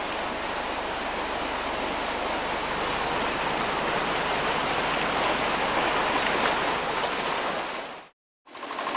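Sea surf washing over rocks: a steady rush of breaking water that cuts off abruptly near the end.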